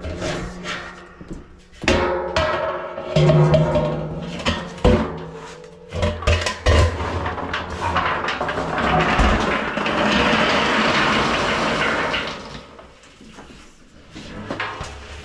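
Range cubes being poured from buckets into a feed barrel: irregular clattering and knocking, then a steady rushing pour for about four seconds that tapers off near the end.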